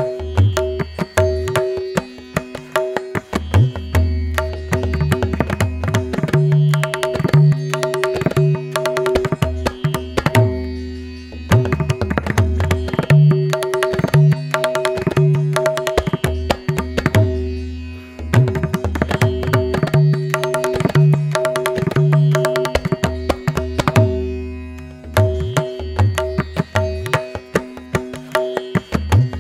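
Background instrumental music in an Indian classical style: a fast drum rhythm over steady held tones, dipping briefly twice.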